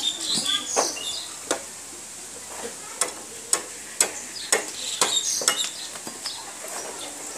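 A curved dao blade chopping and shaving a green bamboo pole: sharp, woody knocks at uneven intervals, roughly every half second, with a brief lull about two seconds in.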